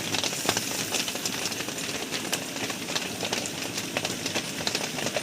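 Thick potato curry sizzling in the pan: a steady hiss with many small crackles.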